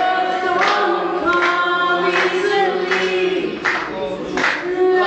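A group of voices singing together, holding long notes in several pitches at once.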